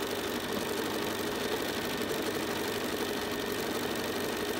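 Bernina sewing machine running steadily at speed, couching a red cord onto fabric with a decorative stitch.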